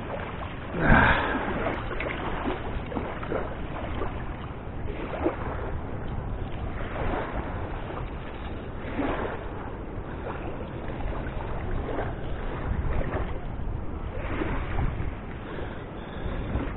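Wind rumbling on the microphone, with irregular scuffs and knocks on top, the loudest about a second in.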